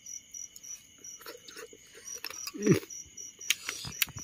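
Crickets chirping steadily with a high pulsing trill of about three pulses a second. Scattered small clicks and knocks come over it, and a short low sound falls in pitch about two-thirds of the way through.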